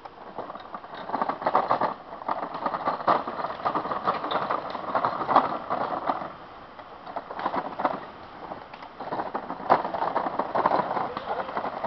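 Small homemade tracked robot vehicle rolling over a gravelly dirt track: its rubber tracks and wheels crunch and rattle on the stones in uneven surges, with scattered small clicks.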